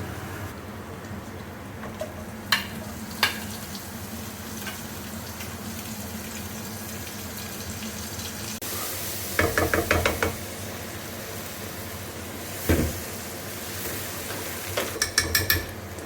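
Food sizzling steadily in a pan, with a few sharp clinks of utensils and two short runs of rapid clicking and clattering, one near the middle and one near the end.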